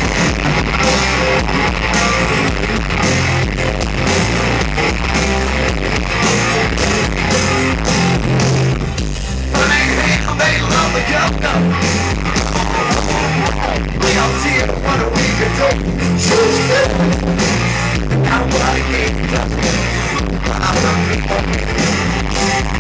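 Loud rock music with electric guitar, singing and a steady drum beat.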